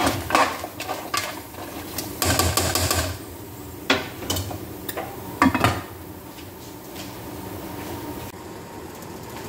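A spoon stirring and scraping in a pot of pasta and sauce. Then come a few sharp knocks as the spoon is set down and a glass lid is put on the pot, the one about five and a half seconds in the loudest. After that only a low steady hum is left.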